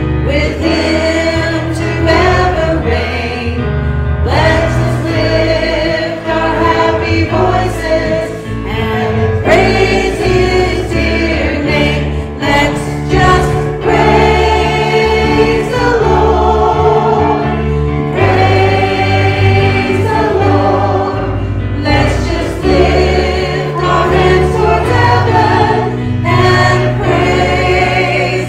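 Church worship team singing a gospel song together into microphones, led by women's voices, over an electric bass guitar playing low notes that change every second or so.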